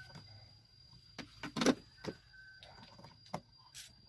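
A few scattered light clicks and knocks of objects being handled, the loudest a little under two seconds in.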